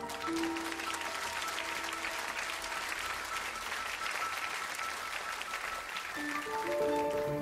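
Audience applauding, bursting in suddenly over quiet piano-like music. The clapping dies down near the end as the music swells back.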